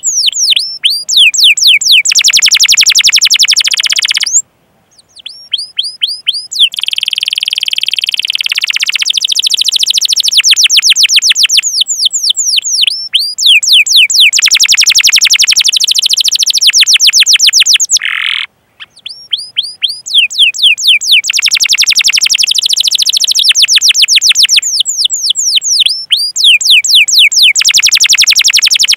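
Domestic canary singing loudly: long, fast rolling trills and runs of rapid downward-sweeping chirps ('cuit cuit'), with two brief breaks in the song.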